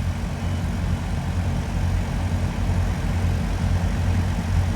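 A large engine idling steadily with a low, even hum.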